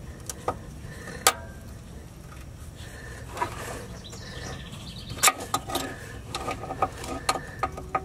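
Channel-lock pliers working a rust-seized snap ring on a CV axle carrier bearing: sharp metal clicks and scrapes with a brief ring, a few at first and then a quick string of them in the last three seconds.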